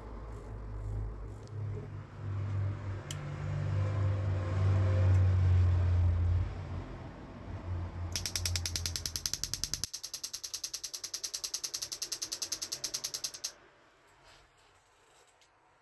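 Combi boiler firing up: a low hum, then its ignition electrode sparking in rapid, even ticks, about ten a second, for roughly five seconds before stopping abruptly.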